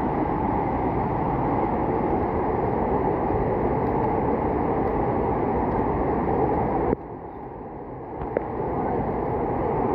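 Rain falling on dense forest foliage, a steady rush of noise. About seven seconds in it drops suddenly quieter, then builds back up.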